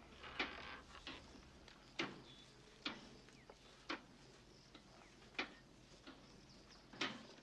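Faint footsteps on a packed-dirt yard, one soft step about every second.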